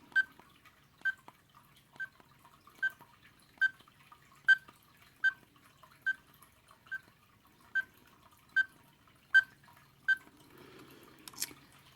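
Bestrix wireless doorbell receiver beeping as its volume button is pressed repeatedly: about a dozen short, identical high beeps, roughly one a second, some louder than others as the volume steps through its levels. A faint rustle and a click near the end.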